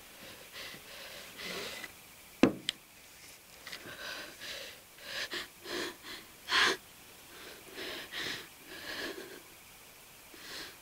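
A woman's heavy, gasping breaths and sobs, over and over, with a sharp knock about two and a half seconds in, the loudest sound, followed by a lighter click.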